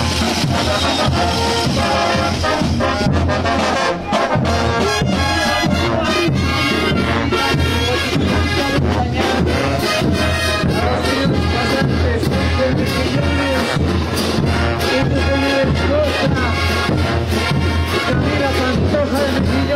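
Brass band playing a morenada: trumpets and trombones over crashing cymbals and bass drums keeping a steady marching beat. The music dips briefly about four seconds in.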